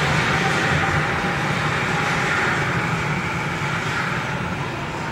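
Rubber-tyred Sapporo Municipal Subway 5000 series train running off into the tunnel after departure, a steady rumble and hiss that slowly fades.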